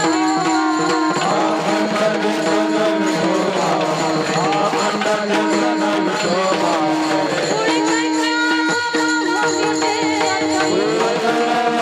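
Marathi devotional kirtan music: a woman singing a melody over a steady held drone, with percussion keeping time.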